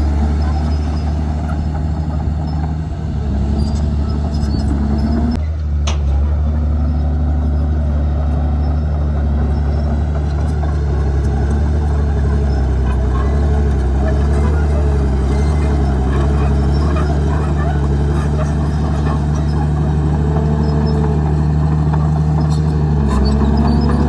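Bulldozer diesel engine running steadily at working speed, with a clank about five seconds in and repeated rising-and-falling metallic squeals over it.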